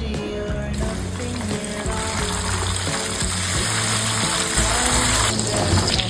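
Breaded chicken fingers sizzling as they fry in hot oil. The sizzle comes in about a second in and grows louder, over background music.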